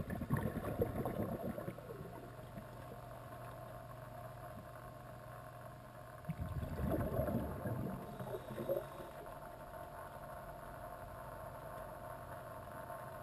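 Battery-powered electric pool vacuum running in the water: a steady motor hum, with two louder spells of water noise, one at the start and one about six seconds in.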